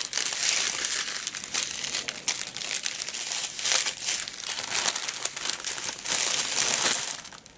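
Clear plastic packets of diamond-painting drills crinkling and rustling as they are handled, in quick irregular bursts that die down just before the end.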